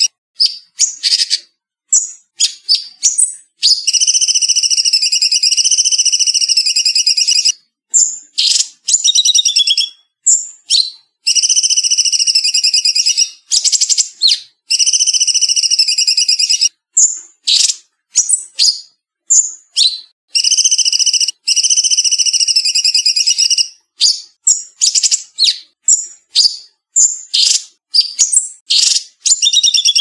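Cucak cungkok singing: long, fast, rattling trills of about two to four seconds each, alternating with short sharp chirps and whistled notes, with abrupt silent gaps between phrases where the recording has been edited clean.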